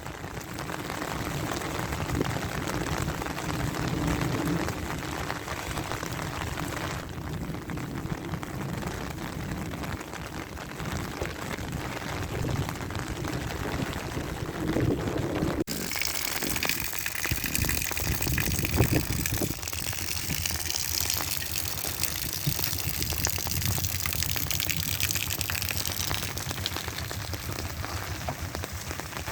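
Heavy rain falling, with water pouring and splashing. The sound changes abruptly about 7 seconds in and again about 16 seconds in, after which it is hissier.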